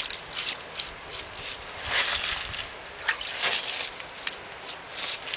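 A hand rubbing and washing wet mud off a stone, with a series of irregular wet swishes and scrapes.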